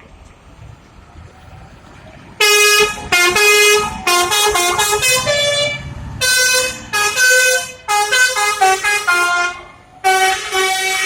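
Telolet bus horn playing a tune: a run of loud musical air-horn notes at changing pitches, some short and some held, starting about two and a half seconds in, with a brief pause near the end.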